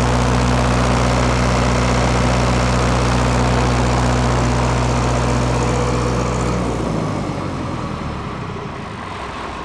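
Perkins four-cylinder diesel engine of an FG Wilson 40 kW generator set running at a steady speed. About seven seconds in, its steady drone breaks up and the sound slowly drops.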